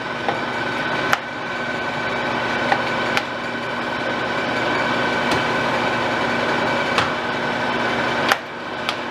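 Okuma LS engine lathe's geared headstock running with the carriage on power feed: a steady gear whine and hum with scattered sharp clicks. After a click near the end it runs a little quieter.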